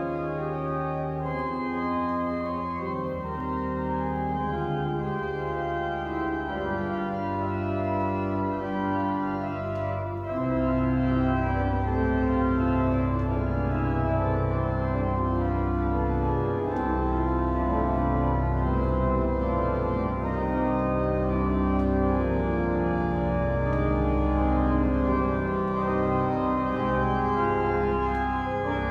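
Church pipe organ playing held chords, ringing in a large reverberant sanctuary; deep pedal bass notes come in about ten seconds in and the music grows louder.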